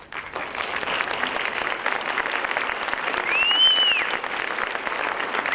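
Audience applause breaking out suddenly as the dance ends, with a loud whistle of approval about three and a half seconds in that rises, holds and falls away.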